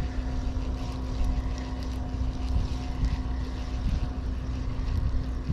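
Boat engine running steadily: a low rumble with a constant hum.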